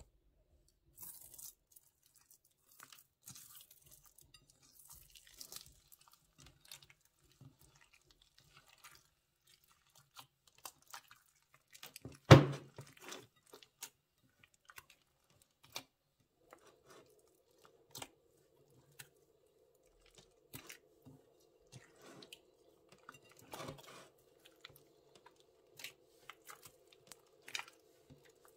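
Sticky slime being squished and stretched by hand, giving scattered wet crackles and clicks, with one loud pop about twelve seconds in. A faint steady hum comes in a little past halfway.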